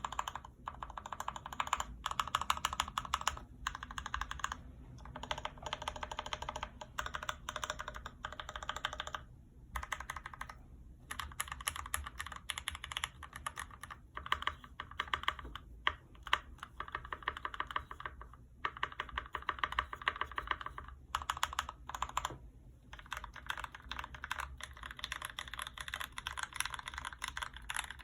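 Typing on a GMMK Pro mechanical keyboard with an aluminum plate, lubed Gateron Clear 35 g linear switches, Durock V2 stabilizers and ABS keycaps: fast runs of key presses lasting a few seconds each, broken by short pauses.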